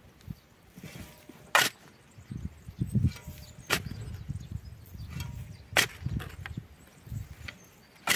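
A garden tool chopping into the soil to dig planting holes for potatoes: four sharp strikes about two seconds apart, with duller thuds and scrapes of earth between them.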